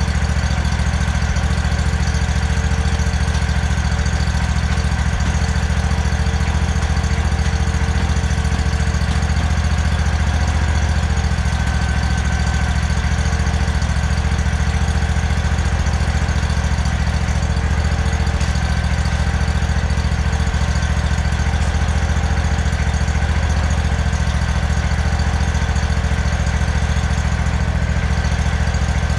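Riding lawn mower's engine idling steadily, with an even, unbroken hum.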